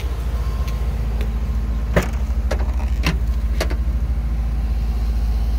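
Infiniti Q50's 3.0-litre twin-turbo V6 idling steadily. Over it come a handful of sharp clicks and knocks as the trunk lid is unlatched and lifted, the loudest about two seconds in.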